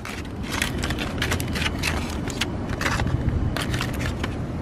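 Aluminium foil crinkling and crackling in irregular bursts as a foil packet is pulled open and handled, over a steady low rumble.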